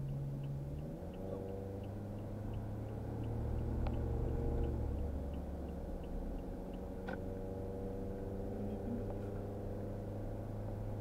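Car engine and road noise heard inside the cabin. The engine pulls harder for a moment around four seconds in, then settles back. A light ticking, about three times a second, runs beneath it and stops about seven seconds in.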